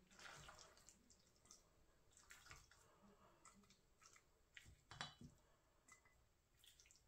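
Near silence, broken by faint clicks and soft scrapes of a spoon scooping chunky fish dip from a metal mixing bowl into a small dish. The loudest is a light knock about five seconds in.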